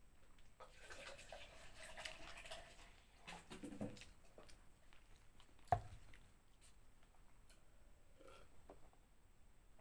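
Close-miked chewing and wet mouth sounds of someone eating, busiest in the first few seconds, with one sharp click a little under six seconds in.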